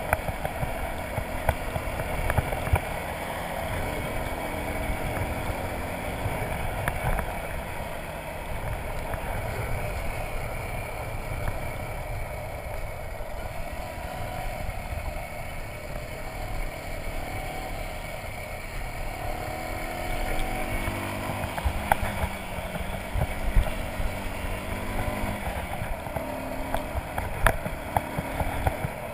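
Motorcycle engine running under way on a gravel road, its note rising in a few places as the rider opens the throttle, over a steady low rumble of wind and tyres on gravel, with a few sharp ticks of stones.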